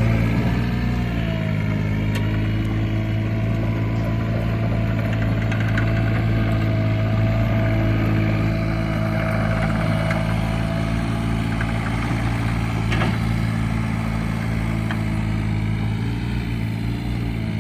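Komatsu PC20R-8 mini excavator's diesel engine running steadily, easing down slightly about a second in. A faint steady whine rides over it for much of the time.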